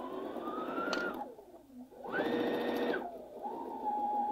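Baby Lock Jubilant sewing machine straight-stitching along a zipper with the zipper foot. It runs in three spurts: it speeds up, slows for a moment, runs fast, then runs steadier and slower near the end.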